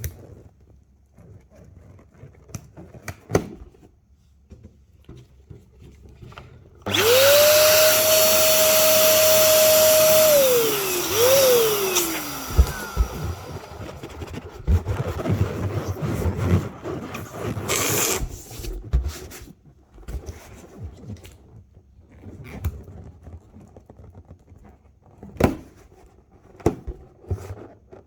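Electric air blower motor switching on abruptly about seven seconds in, running with a steady whine for about three seconds, then switching off and spinning down with a falling pitch. Scattered clicks and rustling handling noise before and after.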